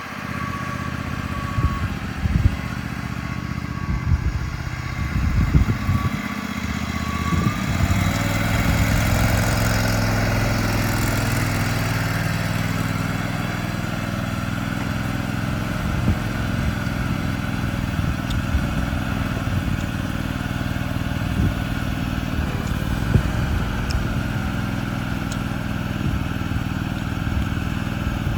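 A mini excavator's 825cc V-twin air-cooled gasoline engine running steadily. It picks up about eight seconds in, and there are several knocks during the first few seconds.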